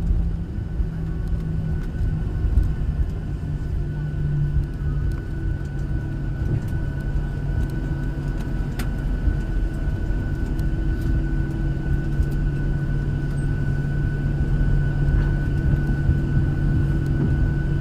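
Jet airliner cabin noise: a steady low rumble and engine hum with a thin, steady high whine throughout, and a few faint clicks.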